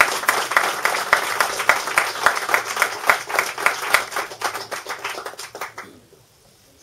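Audience applauding with many irregular claps, thinning out and dying away about six seconds in.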